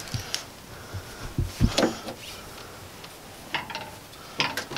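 A few short knocks and rubbing sounds of hands working rubber transmission cooler lines and plastic trim around a truck's radiator.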